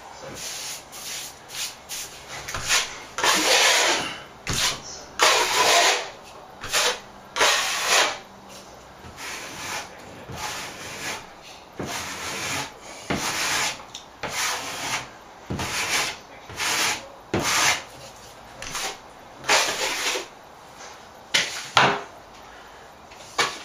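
Hand sanding float rubbed back and forth over a dried plaster patch on a ceiling: the final sanding of the filled and feathered joint compound. The strokes come irregularly, some short and some about a second long, loudest a few seconds in and again near the end.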